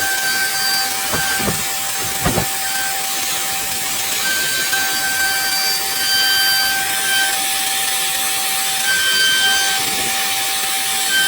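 CNC router spindle whining steadily while cutting wood, over a constant hiss of cutting noise. A few short knocks come in the first couple of seconds, and the whine dips briefly twice.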